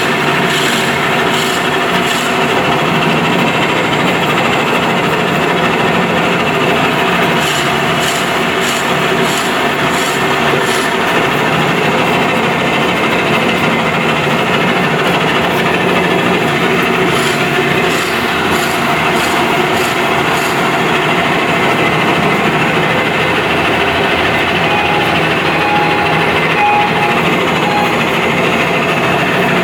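Drill bit boring into a wooden hollow-form blank, with a machine running steadily under it: a continuous grinding, rasping cut in the wood over a mechanical hum. Two spells of rapid ticking come about a quarter and two thirds of the way through.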